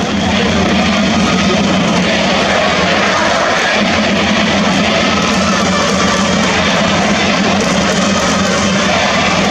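Baseball crowd cheering in a domed stadium: a loud, steady wall of many voices with no single sound standing out.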